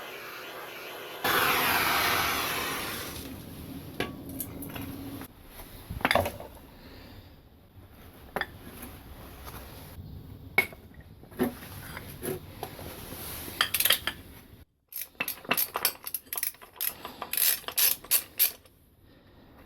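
Steel drill press vise parts clanking and clinking as the vise is taken apart, with a loud rush of noise about a second in that lasts about two seconds and fades, then a quick run of clinks near the end.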